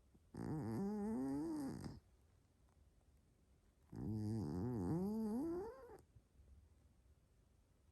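Maine coon cat snoring very strongly in its sleep: two long snores, each about two seconds, with a wavering pitch and quiet breaths between.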